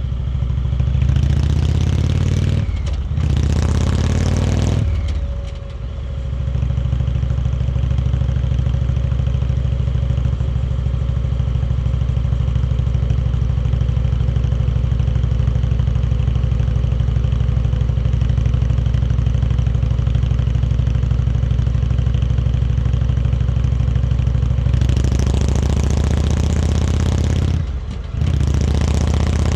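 Indian Chieftain Dark Horse's Thunder Stroke V-twin running steadily. Near the start and again near the end, a loud rushing hiss comes in over it for a few seconds, each stretch ending in a short dip in level.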